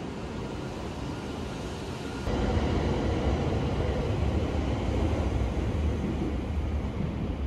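E7 series Shinkansen train rolling out along the platform, a low rumble of running gear and motors. It gets suddenly louder about two seconds in.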